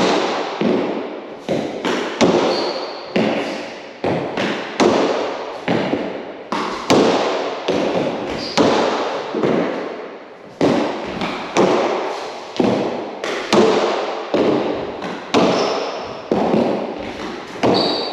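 A hard rugby fives ball struck by gloved hands and smacking off the walls and wooden floor of an enclosed four-wall court: sharp knocks, roughly one a second and sometimes quicker, each ringing off the walls, with a few brief high squeaks between.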